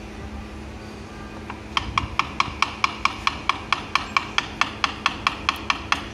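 Rapid, even metal-on-metal tapping, about five light strikes a second, starting about two seconds in. The source is a metal pipe used as a seal driver to tap a new oil seal into the housing of an Iseki TX1300 mini tractor.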